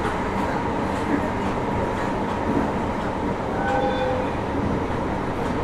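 JR Hokkaido 733 series electric multiple unit running along the line, heard aboard: a steady rumble of wheels and track. About four seconds in, a brief high squeal cuts through.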